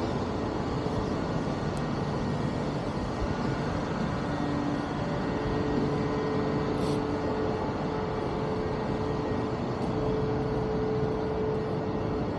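Steady city background rumble of traffic, with a faint steady hum running through it.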